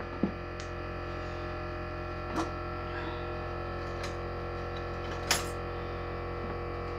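Background guitar music with sustained steady tones, and three short light clicks about a second apart, midway and near the end.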